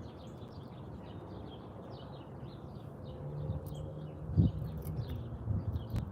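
Small birds chirping over and over in the background, over a low steady rumble, with a single dull knock about four and a half seconds in.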